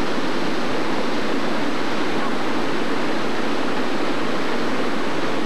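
Fast-flowing floodwater rushing steadily through a desert wash, a constant even roar.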